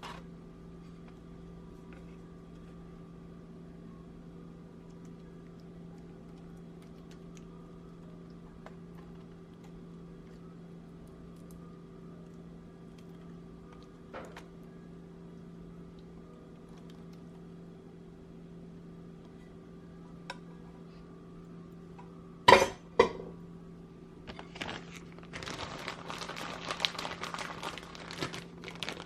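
Kitchen handling sounds over a steady hum: a few faint clicks, then two sharp knocks of dishware a little over twenty seconds in, followed by a run of rustling and scraping to the end.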